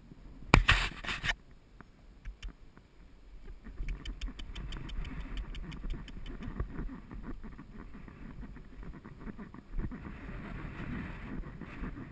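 A horse moving over grass and dirt, heard through a GoPro on the rider: hoofbeats and tack make a quick patter of clicks and thuds that picks up about four seconds in. Half a second in there is a loud, rough burst of noise lasting about a second.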